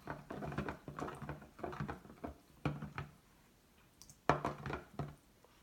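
Spoon stirring a thick mixture of glue, water and glitter in a bowl: repeated short scrapes and taps against the bowl, about two a second, pausing briefly past the middle.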